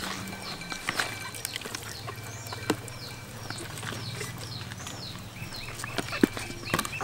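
Wet squelching and slapping of hands working a raw whole chicken coated in seasoning in a plastic basin, with a few sharp wet clicks. Birds chirp in the background, repeating quick falling chirps and, near the end, a run of short notes, over a low steady hum.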